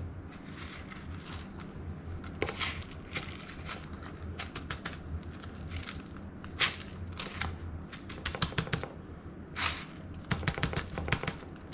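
Crushed Funyuns onion-ring chip crumbs crunching and rustling under the fingers as an egg-washed crappie fillet is pressed and coated in them, in a run of irregular short crackles.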